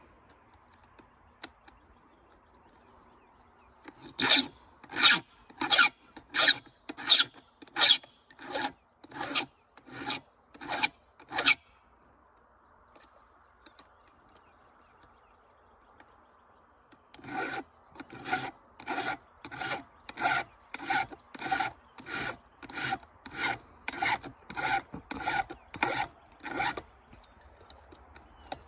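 A hand file scraping across the teeth of a chainsaw chain in steady back-and-forth strokes, about one and a half a second. A run of about a dozen strokes is followed by a pause, then another run of about fifteen.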